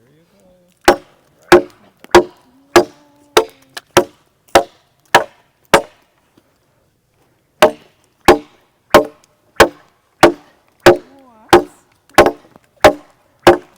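Machete blade chopping into a log in a steady rhythm, about one and a half sharp wooden strikes a second, with a short pause about six seconds in before the chopping picks up again.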